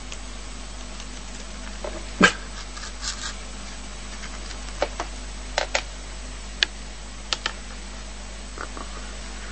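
About ten short, sharp animal calls scattered over steady background hiss, the loudest about two seconds in.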